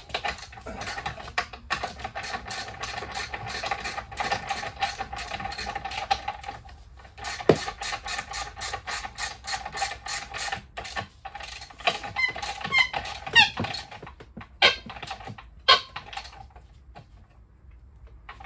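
Ratchet wrench clicking in rapid runs while the nuts on the electric scooter's rear hub-motor axle are tightened down, with a short pause about seven seconds in. A few brief squeaks and two single clicks follow near the end.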